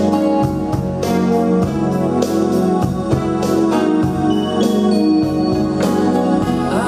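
A 1980s romantic song playing through a 1973 Gradiente Lab 70 stereo amplifier and Sony speakers: sustained keyboard chords over a steady beat.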